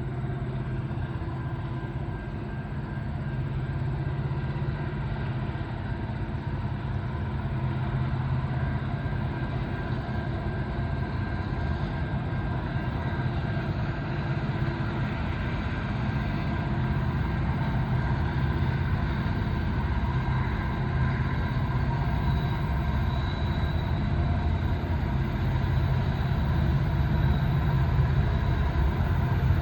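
Diesel locomotives of a heavy loaded grain train approaching with their engines working hard under load. It is a steady, low engine sound that grows gradually louder.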